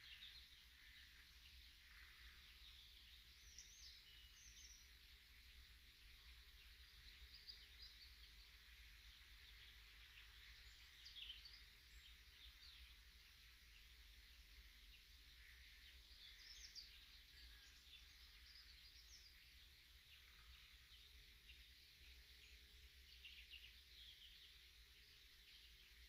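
Faint songbirds chirping and trilling, several calling over one another in short scattered phrases, over a low steady rumble.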